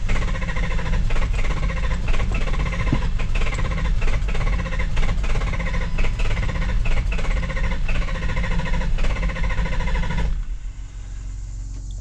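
Ford 7.3 Powerstroke diesel cranking on the starter without firing, trying to catch as injection control pressure reaches about 2,000 but not starting. This is the hot no-start. The cranking stops about ten seconds in.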